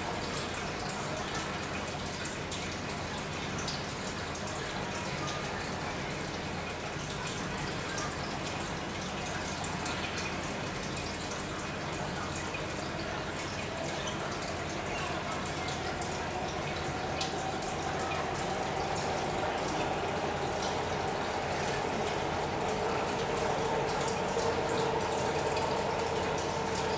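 Aquarium water bubbling and dripping at the surface, with many small splashes over a steady low hum. A faint droning tone grows louder over the last third.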